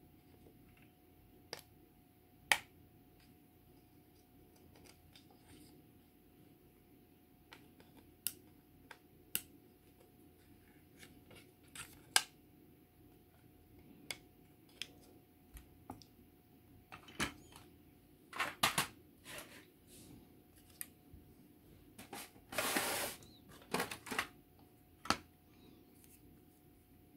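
Scattered sharp clicks and taps of plastic model-kit parts and hobby tools being handled at a workbench, with one brief rasping scrape late on. A faint steady hum lies underneath.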